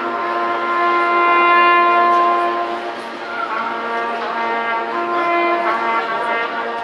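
Marching band brass section playing long held chords, swelling loudest a second or two in, then moving into a new phrase about halfway through.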